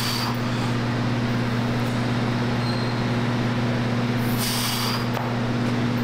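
A steady low mechanical hum over a constant wash of noise, with two short hissy bursts, one at the start and one about four and a half seconds in.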